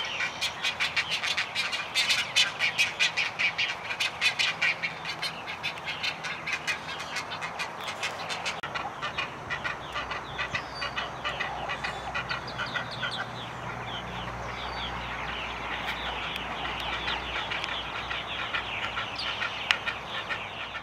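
Nesting colony of great egrets calling: rapid, repeated call notes several a second, loudest for the first eight seconds or so, then a softer, continuous chatter.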